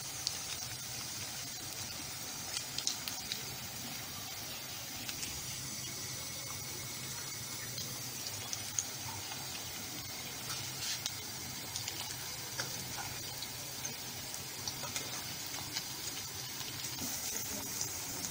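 Potato bites deep-frying in hot oil: a steady sizzling hiss with scattered small pops and crackles.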